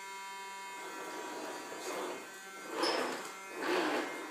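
Small vacuum cleaner motor running with a steady whine. From about halfway through, short bursts of a voice break in over it.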